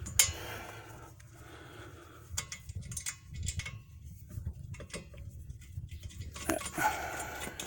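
Small metal clicks and clinks as a lock washer and nut are fitted by hand onto a rear air shock's mounting bolt, with one sharp click near the start and a few scattered ones later, over a low steady rumble.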